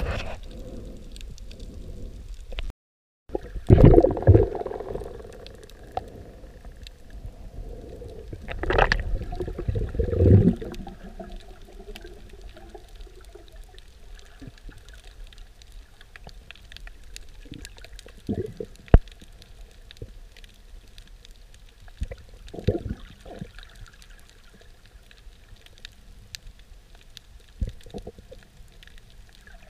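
Muffled underwater sound through a diving camera's housing: low rushes of moving water and bubbles swelling up a few times, loudest about 4 s in and again around 9 to 10 s in, over a quiet bed of scattered faint ticks and a few sharp clicks. The sound drops out completely for a moment about 3 s in.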